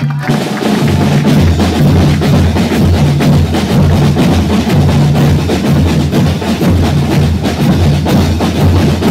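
A band of snare drums and bass drums playing a fast, steady beat together with an accordion: the instrumental interlude of the clown's chula between sung verses.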